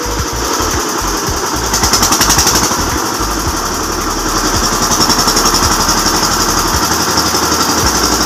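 Single-cylinder diesel engine of a VST Shakti 130 DI power tiller running steadily, with a fast, even knocking beat.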